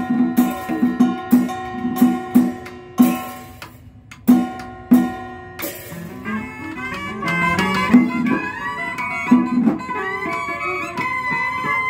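Vietnamese Cao Đài ritual ensemble (nhạc lễ) playing a traditional instrumental piece. For the first few seconds there are quick plucked-string notes with sharp attacks, with a brief lull about four seconds in. From about six seconds in, a sustained, sliding melody of kèn reed horn and bowed fiddle takes over above the plucked strings.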